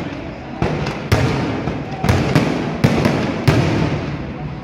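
Aerial fireworks going off: about seven sharp bangs at irregular spacing, some less than half a second apart, each trailing off in a rumbling echo.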